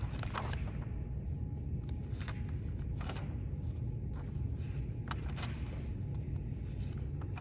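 Room tone: a steady low hum with several soft rustles and clicks scattered through it.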